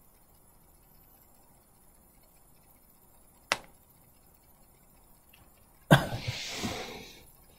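Near-silent room tone broken by a single sharp click about three and a half seconds in, then near the end a sudden knock followed by about a second and a half of noisy rustling that fades away.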